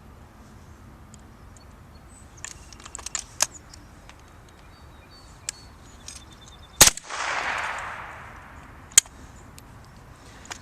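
Rossi break-action single-shot .22 rifle fired once, about seven seconds in, a sharp crack that trails off over a second or so. Before it come light clicks from working the action to reload, and a sharp click follows a couple of seconds after the shot.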